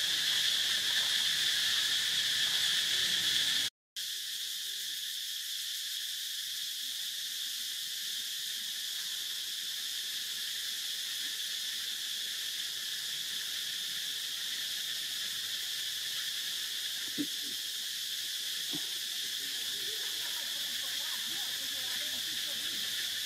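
Steady chorus of insects, an even high-pitched drone with no breaks in rhythm. It drops out for a split second about four seconds in at an edit, then carries on. A single brief faint tick about two-thirds of the way through.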